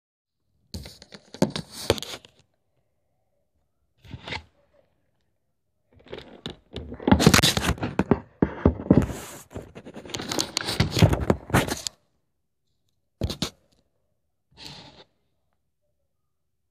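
Phone microphone being handled and rubbed against hands and clothing: irregular bursts of scraping and crunching, the longest lasting several seconds in the middle, then two short scuffs.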